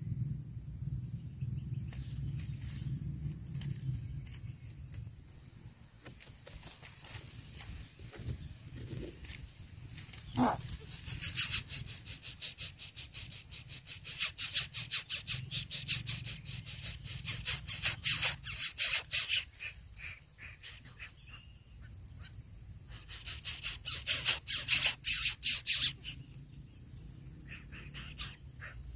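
A steady, high insect trill, cricket-like, with bursts of rapid rasping clicks twice, the second starting a little over halfway in.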